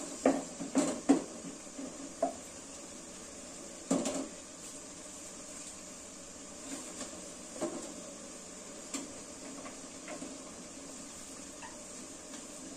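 A spoon scraping and clanking against a metal pot as corn rice is scooped out. There is a quick cluster of clanks in the first second and a half, another knock about four seconds in, then lighter, scattered scrapes and taps.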